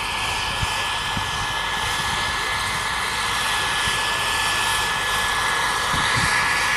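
Bell 412 helicopter flying low: the steady high whine of its twin turboshaft engines over the broad rush of the rotor, growing slightly louder.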